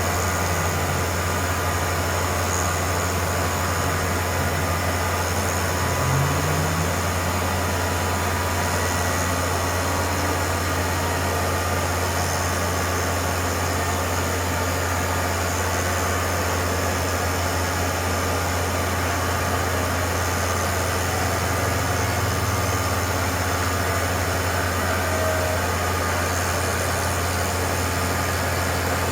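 CNC router running, a single-flute carbide bit milling a circle out of a block of wood: a steady machine hum over an even noise, with a few short rising and falling whines in the first several seconds.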